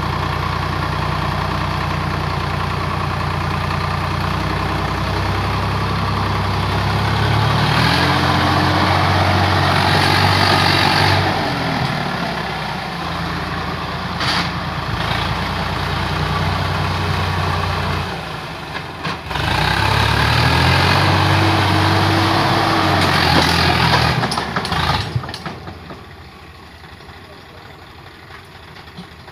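Swaraj 855 FE tractor's three-cylinder diesel engine running while pulling a rotavator through a flooded paddy field. It revs up twice for several seconds and settles back each time, with a couple of sharp knocks. Near the end it drops to a much quieter level.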